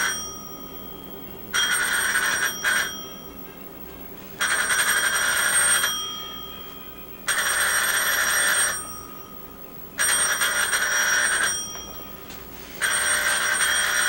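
Corded wall telephone ringing over and over, each ring lasting about a second and a half with a pause of about the same length between rings, six rings in all.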